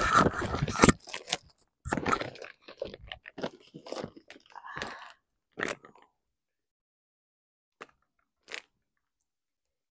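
Packaging crinkling and crackling as it is handled and opened, loudest in the first second. Scattered rustles and clicks follow and die away after about six seconds, with a couple of faint clicks later on.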